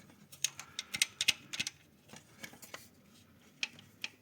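Timing chain and chain damper of a VAZ-21214 Niva engine moved by hand with the valve cover off: a dozen or so light, irregular metallic clicks and clinks, busiest in the first two seconds and picking up again near the end. The chain is slack.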